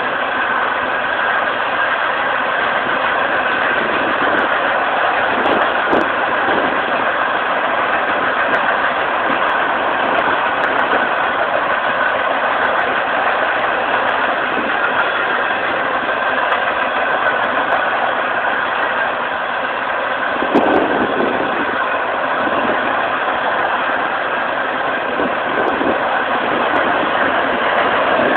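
Potash train's covered hopper cars rolling past: a steady rush and rumble of steel wheels on the rails, with a brief knock about 6 seconds in and another about 20 seconds in.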